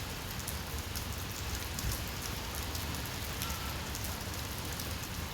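Steady rain falling on hard surfaces, a constant hiss with scattered close drop ticks over a low rumble.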